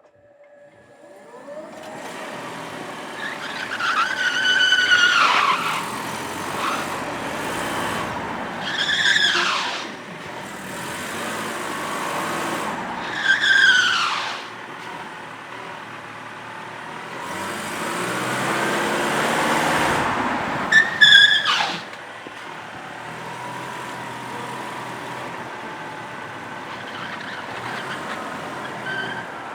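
Electric car's tyres squealing on the painted concrete floor of an underground parking garage: four short screeches, each falling in pitch. Steady tyre rolling noise runs between them and swells once as the car sweeps past.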